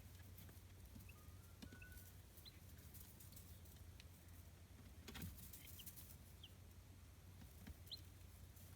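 Chicks peeping faintly: a few short, high, scattered peeps, with soft clicks and one louder tap about five seconds in, over a steady low hum.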